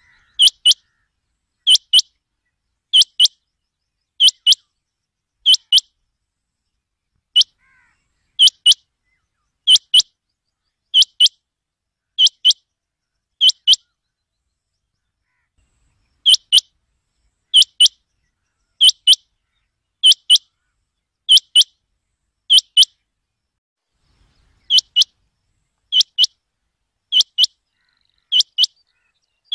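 Rain quail calling: a sharp, high double note, repeated about once a second in long runs with a few short breaks.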